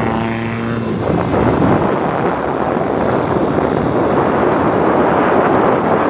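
Wind rushing over the microphone and road noise from a moving vehicle, a loud steady roar. A steady pitched tone sounds through it for about the first second.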